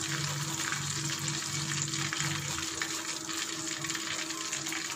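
Hot oil in a kadai sizzling steadily with fine crackling, from deep-frying batter-coated chicken pieces.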